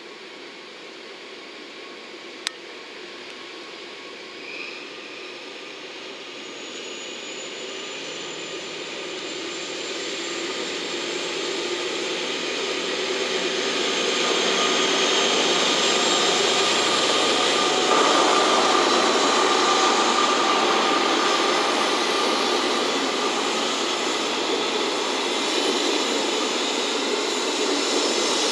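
DE10 diesel-hydraulic locomotive and its 12-series coaches approaching at low speed and passing close by. The engine and running noise grows steadily louder over the first half and stays loud as the coaches roll past. There is a single sharp click a couple of seconds in.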